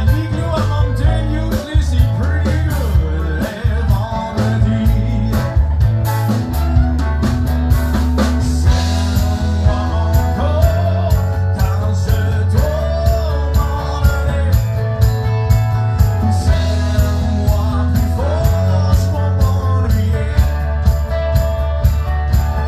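Live band playing: fiddle, electric guitar and drum kit, the drums keeping a steady beat.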